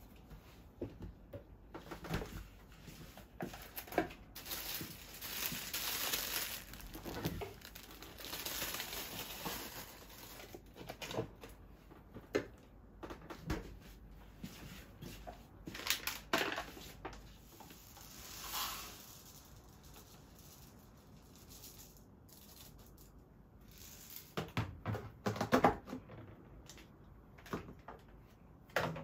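Thin plastic produce wrapping crinkling and rustling as groceries are handled, with scattered clicks. A cluster of louder knocks from items set down on a kitchen counter comes near the end.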